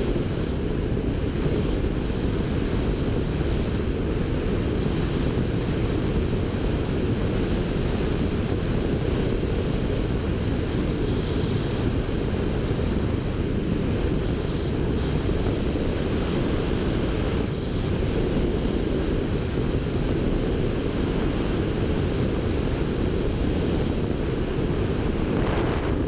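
Wind rushing over the camera's microphone in wingsuit flight: a low, steady rush with no break.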